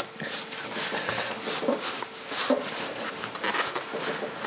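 Irregular rubbing and scraping of gloved hands working a hose coupler onto an aluminium charge pipe at the turbocharger, with a few light knocks.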